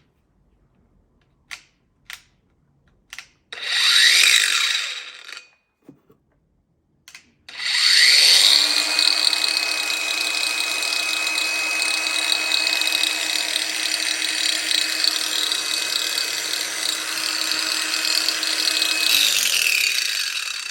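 Ozito PXC 18V brushless angle grinder with a 125 mm disc: a few clicks, then a brief spin-up that winds straight back down. After another click it spins up again and runs at a steady speed with a constant whine for about twelve seconds, then winds down near the end.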